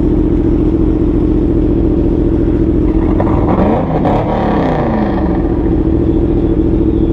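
Motorcycle engine idling steadily as it warms up. Between about three and five seconds in, another engine's pitch briefly swings up and down.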